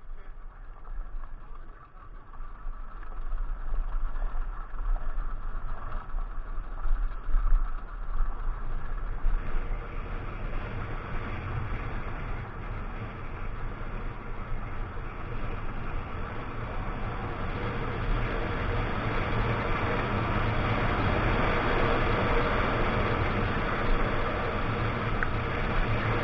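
Kawasaki KX 125 two-stroke dirt bike engine running under way, mixed with wind rushing over the helmet camera. The sound builds over the first few seconds and then holds steady.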